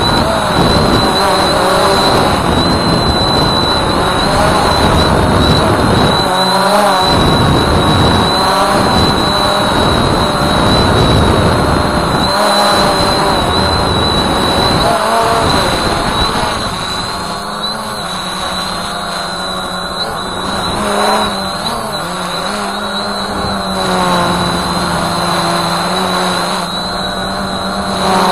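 Voyager 3 quadcopter's electric motors and propellers running, heard from on board: a steady high whine over rushing noise, with lower tones that waver up and down as the motor speeds change. It drops a little in loudness past the halfway point.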